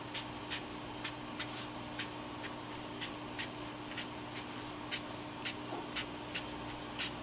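Tombow watercolour brush marker flicking short strokes across cardstock, a light scratchy tick with each stroke, about two or three a second.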